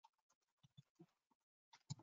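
Faint, scattered clicks and taps of a computer mouse and keyboard while a form is filled in, a few louder ones near the end.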